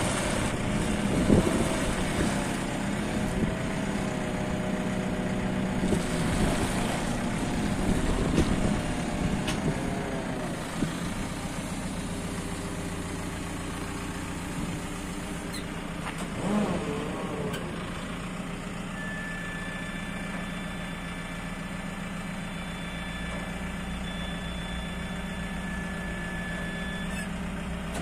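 JCB 540-170 telehandler's 110 hp JCB diesel engine idling steadily. A faint, steady high whine joins in about two-thirds of the way through.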